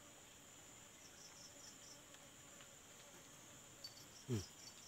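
Faint, steady high-pitched insect trilling with small regular pulses, typical of crickets in riverside grass. About four seconds in, a brief low falling vocal sound stands out above it.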